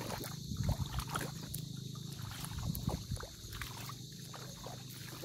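Shallow seawater sloshing and splashing lightly around legs wading through it, uneven, a little stronger in the first few seconds.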